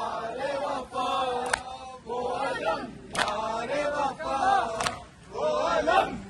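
Group of mourning men chanting a Muharram nauha together, with a sharp slap about every second and a half in time with the chant, the sound of chest-beating (matam).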